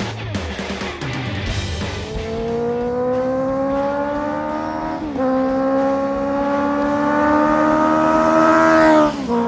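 Honda CB650 inline-four motorcycle accelerating hard. The engine note climbs steadily, drops once about five seconds in at an upshift, climbs again, then falls away near the end as the throttle closes.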